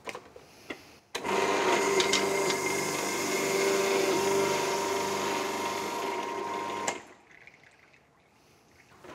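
Magimix Duo Plus XL juicer's motor running with the citrus press fitted, spinning the reamer against half an orange: a steady motor hum with a whine. It starts with a click about a second in and stops about seven seconds in.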